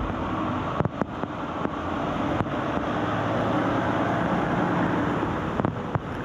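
Garbage truck engine running as the truck drives through deep floodwater, with water rushing and splashing around its wheels. A few sharp knocks cut through.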